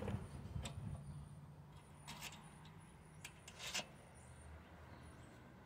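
Faint handling noises from the air filter housing and carburetor of a Honda HR215 lawnmower engine: a few short light clicks and knocks, the loudest a pair about three and a half seconds in, over a faint low hum.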